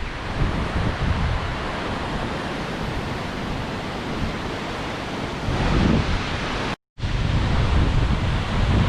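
Strong wind buffeting the microphone: a steady rush with gusty low rumbling, cut by a brief dropout to silence about seven seconds in.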